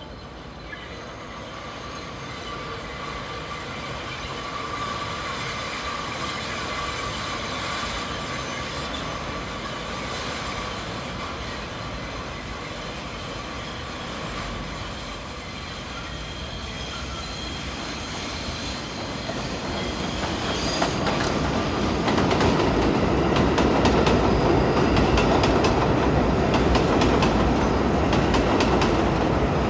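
R62 subway train approaching and running into the station. At first there is a steady high whine over a low rumble, growing louder. From about two-thirds of the way in, the cars pass loudly, with wheels clicking over rail joints.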